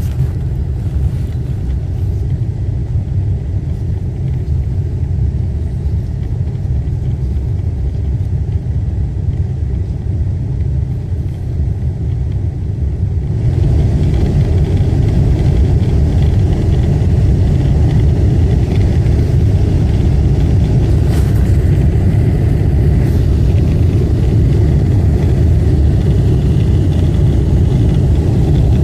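Toyota Crown GXS12 running with a steady low rumble that steps up louder and fuller about halfway in.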